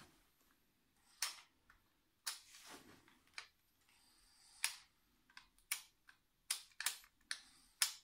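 About ten sharp, irregularly spaced clicks and short ticks from a remote-controlled self-balancing toy robot being driven with its handheld remote.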